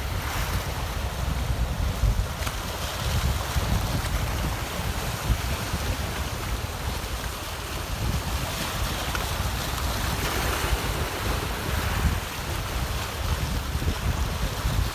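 Rough sea surf washing onto the shore in typhoon wind, with heavy wind buffeting on the microphone. The surf swells louder a few seconds in and again about ten seconds in.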